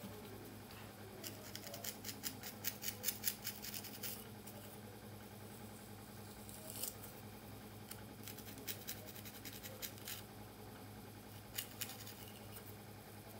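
A comb's tip and fingertips picking apart cornrows in natural hair: dry, crisp scratching ticks, a quick run of them about a second in lasting some three seconds, then a few single ones later, over a faint steady hum.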